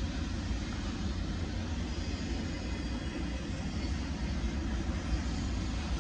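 Double-stack intermodal freight train's well cars rolling past, a steady running noise of steel wheels on the rails with no breaks.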